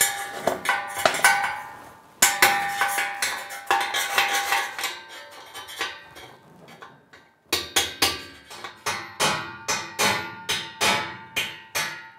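Hand-held steel chisel scraping and chipping small weld spatter off a welded steel frame where an angle grinder cannot reach: sharp metallic scrapes and clinks with the steel ringing. From about halfway through the strokes come quickly and evenly, about three a second.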